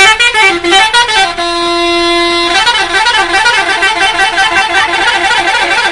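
Bus 'telolet' musical horn playing a quick tune of stepping notes, holding one long note about a second and a half in, then running into a fast repeating warble of alternating notes.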